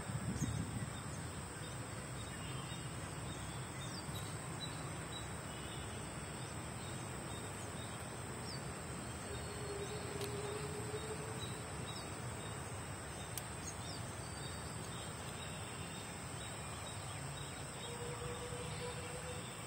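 Outdoor ambience: a steady high-pitched insect trill over an even background hiss and low rumble, with a few faint short chirps.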